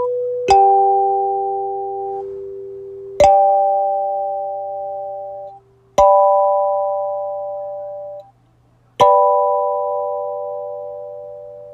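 Freshly tuned kalimba playing part of the school-bell chime tune. Its metal tines are plucked four times about three seconds apart, several notes sounding together each time, and each chord rings on and slowly fades.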